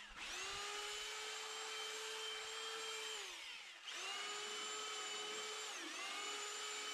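Corded handheld electric power tool worked along the edge of a wooden 1x12 board: its motor spins up to a steady whine, winds down about three seconds in, starts again a moment later and sags briefly under load near six seconds.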